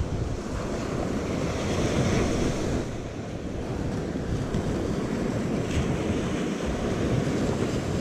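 Wind rumbling on the microphone over the steady wash of surf breaking on the beach.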